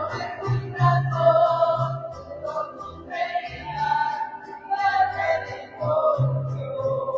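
Sung church music: voices carrying a slow melody over an instrumental accompaniment with short low bass notes.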